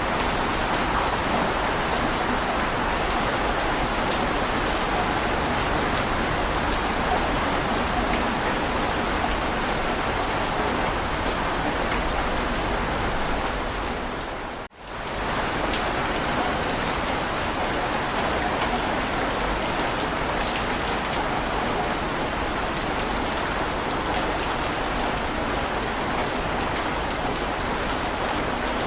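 Heavy rain falling in a steady, dense hiss. About halfway through it fades out to near silence for a split second, then swells straight back in.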